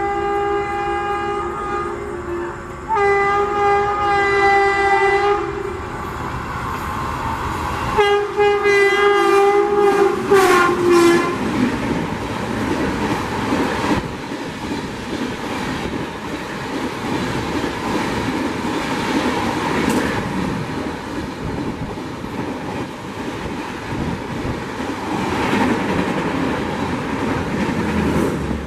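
An Indian Railways electric locomotive's two-note horn sounds three long blasts over about the first eleven seconds; the last breaks into short toots. Then comes the steady rush and wheel clatter of an LHB passenger train passing through the station at speed.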